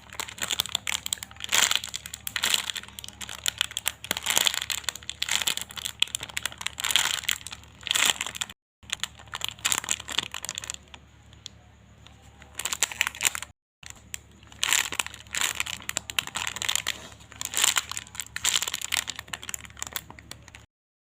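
Crinkling and rustling as a squishy toy is handled, most likely its plastic wrapper being squeezed and turned. The noise comes in irregular patches and breaks off into total silence three times.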